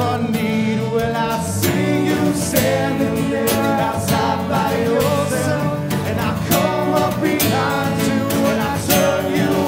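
A live acoustic band playing a song: strummed acoustic guitars over an electric bass line, with a voice singing into a microphone.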